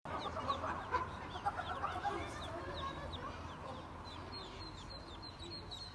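Ducklings peeping: a string of short, high, falling peeps, two or three a second, while the mother duck gives low clucking calls to them, mostly in the first two seconds.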